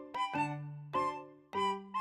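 Light background music: a simple melody of separate notes, several a second, each struck and then fading.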